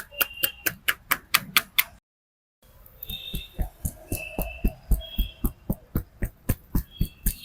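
Barber's hands striking rapidly and rhythmically in a percussive head massage, about five or six strokes a second. The strokes are sharp slaps at first, then, after a brief cut to silence, deeper thudding blows.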